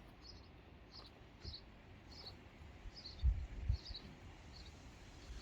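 A small bird chirping repeatedly, one short high chirp roughly every half second to second. Two low thumps about three and a half seconds in.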